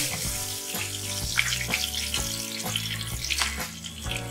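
Bay leaves, cardamom pods and other whole garam masala spices sizzling in hot mustard oil, with scattered crackles; the sizzle is strongest at the start and then settles. Soft background music with held notes plays underneath.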